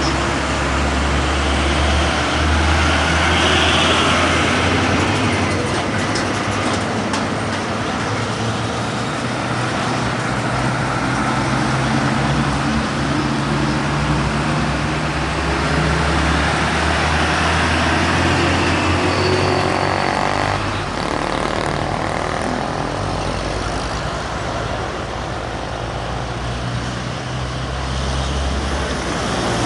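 Heavy diesel trucks and a coach bus passing one after another, engines running with a low drone and tyre noise. The drone changes pitch and strength as each vehicle comes and goes.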